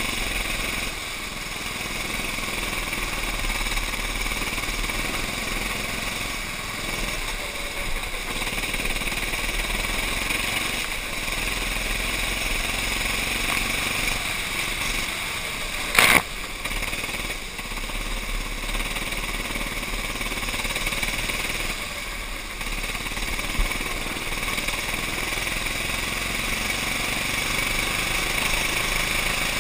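Racing kart's engine running at speed, heard from the kart itself, its level dipping and rising again every few seconds through the laps. A single sharp knock, the loudest sound, comes a little past halfway, with a smaller one a few seconds later.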